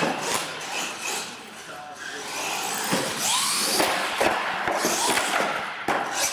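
Radio-controlled monster truck's electric motor whining and revving as the truck runs up a ramp and flips. Its tyres and chassis knock down hard on the concrete near the end as it crashes and tumbles over.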